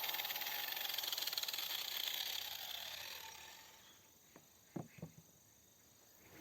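Angle grinder fitted with a woodworking disc, running and then winding down, its noise falling in pitch and fading away about four seconds in. A few light knocks follow.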